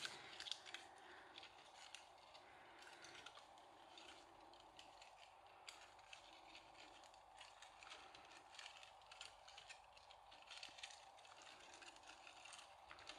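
Near silence with faint rustling and many small scattered clicks as a thin-wire fairy-light string is handled and untangled, over a faint steady hum.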